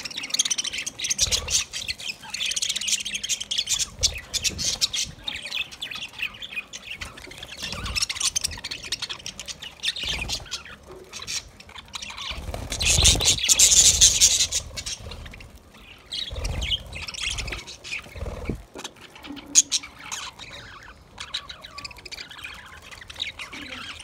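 A flock of budgerigars chattering and squawking, many short overlapping calls at once, swelling loudest a little past halfway.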